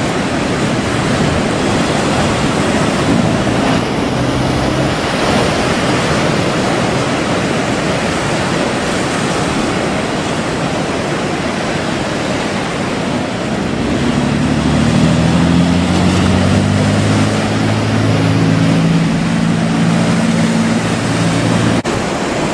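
Heavy surf and breaking waves, a loud steady rush of water. About two-thirds of the way through, a boat's engine joins in as a steady low hum, then cuts off near the end.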